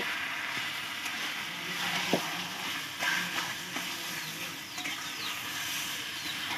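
Taro greens and fish heads sizzling in a metal karahi while a metal spatula stirs them, with a couple of sharp knocks and short scrapes of the spatula against the pan.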